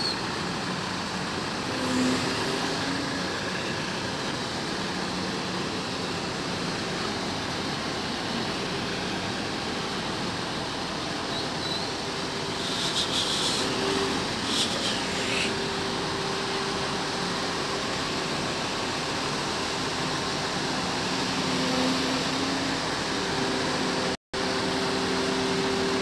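Sany truck cranes' diesel engines running steadily, with a hum whose tones come and go as the cranes work the lift. A few brief high clicks come about halfway through, and the sound cuts out for an instant near the end.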